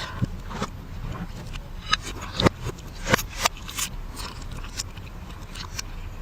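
Mukbang eating sounds played backwards: irregular clicks, crunches and scrapes of chewing and utensils over a low steady hum, with the sharpest strokes in the middle.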